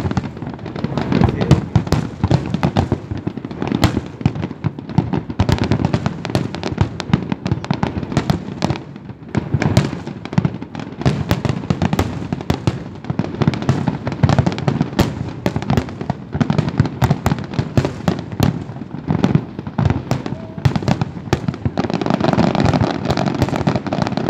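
Fireworks going off in a dense, continuous barrage of bangs and crackles, many each second.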